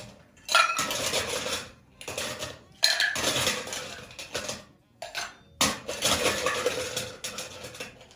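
Ice cubes clattering into a stainless steel cocktail shaker tin as it is filled with ice, in several separate rattling bursts.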